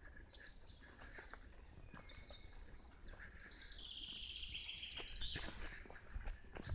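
Songbirds singing in a pine wood: thin high whistled notes, then a fast trill about halfway through. A low rumble and scattered clicks run underneath.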